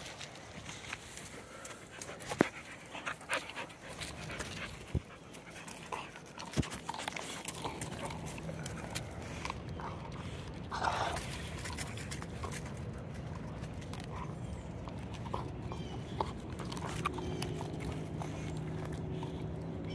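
A Staffordshire bull terrier gnawing on a stick of wood, with sharp cracks and crunches of the wood through the first several seconds, and a dog panting.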